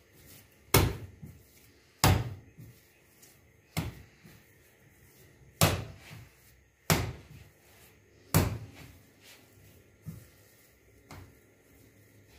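Soft pita-bread dough slapped down onto a kitchen countertop while being kneaded by hand: six loud thuds, one every second and a half or so, then two fainter knocks near the end.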